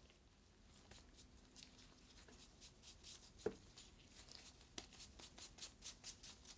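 Flour being dusted and patted onto yellowtail fillets by hand: faint, soft brushing strokes that come faster in the second half, with one light knock about three and a half seconds in.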